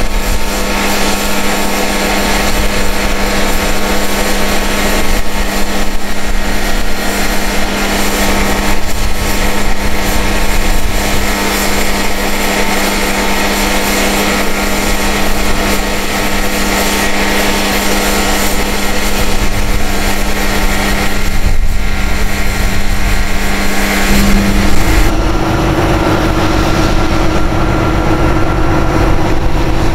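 Heavy-duty diesel truck engine running steadily with a constant low hum; about 25 seconds in, the hum steps up to a higher pitch.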